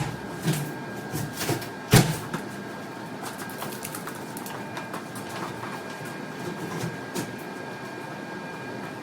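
Demolition work in a small room: a few sharp knocks and clatters in the first two seconds, the loudest about two seconds in, then a steady background hum with faint scattered clicks.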